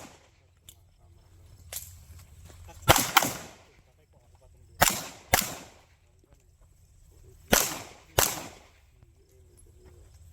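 Pistol shots fired in close pairs, three pairs about two to three seconds apart, each crack followed by a short echo. A fainter single crack comes about two seconds in.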